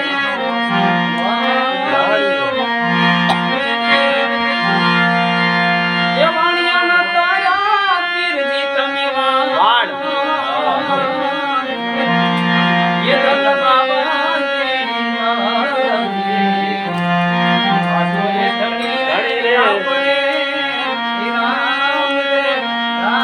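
Devotional bhajan music: a harmonium holds steady chords under tabla, while a voice sings long melismatic phrases that slide up and down in pitch.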